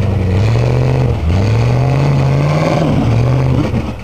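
Off-road vehicle's engine revving hard under load as it climbs a rock step. The revs rise, drop back about a second in, climb higher, dip again near three seconds and fall away just before the end.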